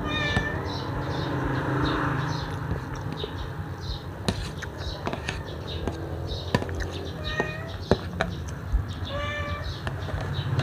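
A cat meowing a few times, a short call near the start and two more in the second half, over sharp clicks of a spoon and fork against an aluminium foil tray.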